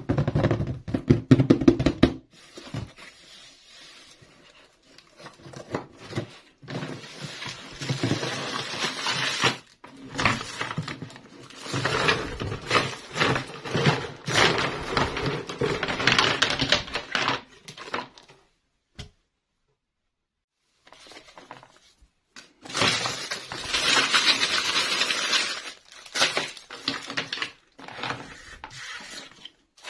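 Small plastic toy parts and packaging being handled: rustling and crinkling with many quick clicks and knocks, pausing for a few seconds about two-thirds through.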